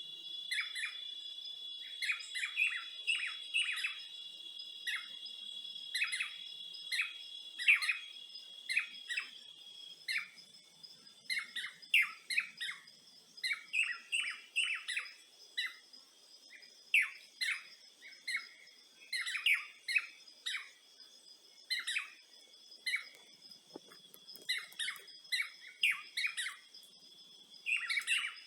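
Many birds giving short, rapid chirps and calls over a steady high-pitched insect trill; the loudest trill drops out about a third of the way in, leaving fainter ones beneath the chirping.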